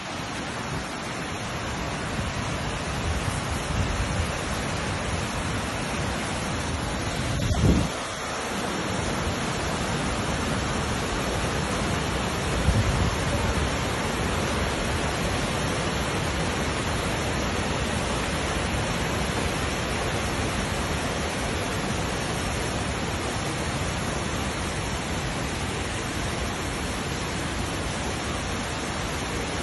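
Steady rushing of a flood-swollen mountain torrent pouring over boulders, with a few low thumps on the microphone, the loudest about eight seconds in.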